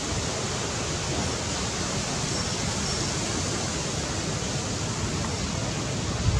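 Steady, even rushing noise with no distinct events, then a short low knock right at the end.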